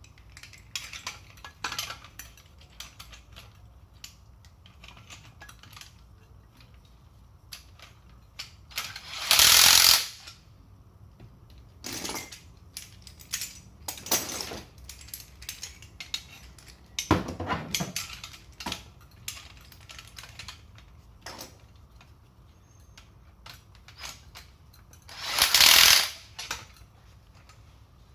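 Handling sounds as the tool and its parts are packed away: scattered clicks and knocks, with two loud hissing bursts about a second long, about nine seconds in and again near the end.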